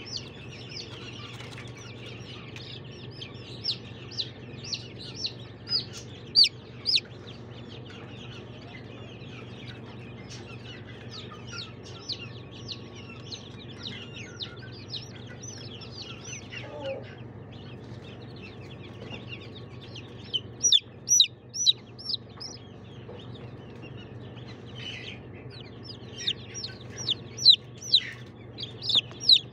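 Chicks peeping, with short high peeps coming in bursts, the busiest about a fifth of the way in, two-thirds of the way in and near the end, over a steady low hum.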